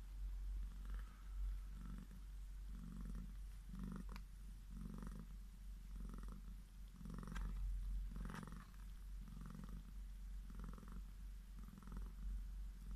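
A nursing mother cat purring, the purr swelling and falling in an even rhythm about once a second with her breathing. A few faint clicks sound partway through.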